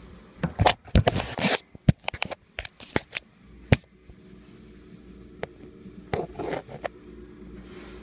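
A run of scrapes, clicks and sharp knocks from handling at an open toilet tank, the loudest knocks a little under two seconds in and near four seconds in, with a few more scrapes and clicks around six seconds in.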